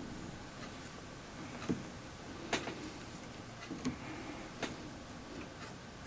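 A few scattered light clicks and taps at irregular intervals over a faint steady background: a hand-made ten-sided case-back tool being handled and turned on the screw-down case back of a watch.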